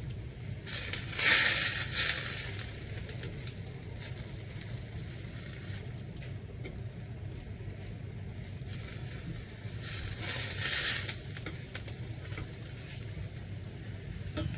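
Bok choy being stir-fried in a stainless steel wok: a spatula scraping and turning the greens, with louder bursts of sizzling and scraping about a second in and again around ten seconds, over a steady low hum.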